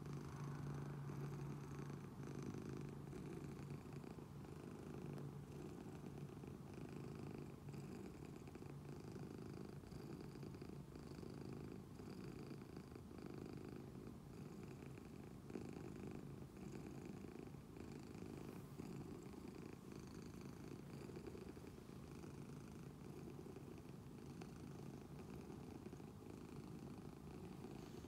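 Domestic cat purring steadily and faintly, the purr swelling and easing in a regular rhythm.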